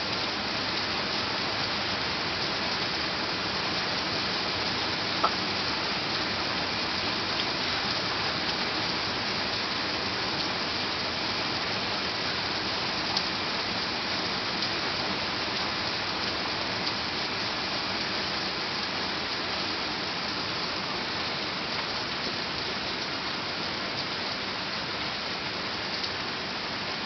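Heavy thunderstorm rain falling steadily, an even hiss of downpour, with two sharp taps, about five and thirteen seconds in.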